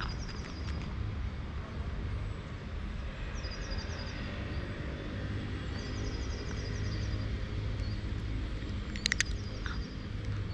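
Outdoor street ambience: a steady low rumble, with a small bird singing short runs of rapid high chirps three times. A few sharp clicks come about nine seconds in.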